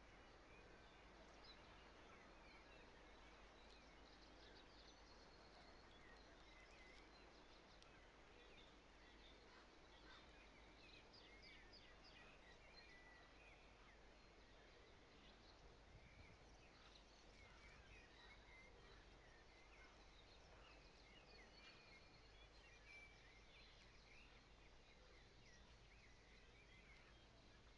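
Faint songbirds singing and chirping in the background, many short chirps and trills, over a steady low hum.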